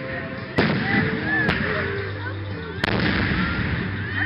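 Aerial firework shells bursting overhead: three sharp booms in a little over two seconds, each trailing off in a rolling echo.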